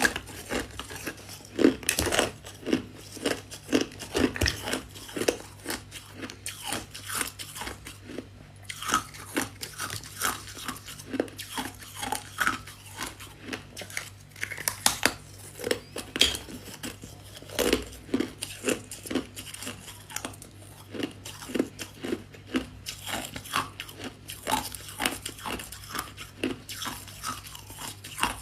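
Close-miked biting and chewing of crunchy freezer frost: many irregular crisp crunches, one after another, with a faint steady low hum underneath.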